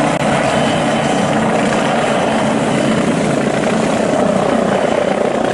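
A helicopter sound effect, rotor and engine running steadily, cutting in suddenly at the start.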